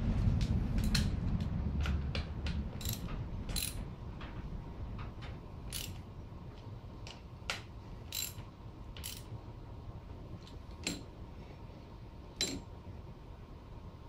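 Ratchet wrench clicking in short, irregular strokes as the axle pinch bolts at the bottom of a motorcycle's front fork leg are tightened, with a low rumble that fades after about two seconds.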